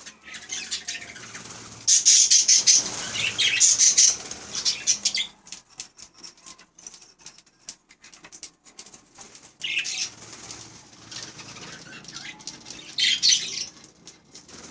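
Pet budgerigars chattering and chirping in loud, high-pitched bursts. The longest run starts about two seconds in, with shorter bursts about ten and thirteen seconds in.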